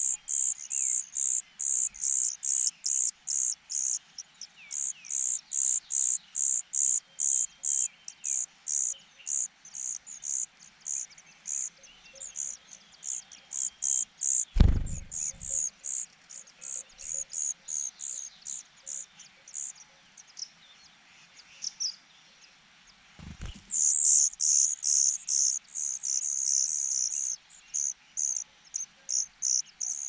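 Insect chirping in a steady rhythm, short high pulses about three a second, pausing for a few seconds past the middle. Two low thumps cut in, the louder one about halfway through.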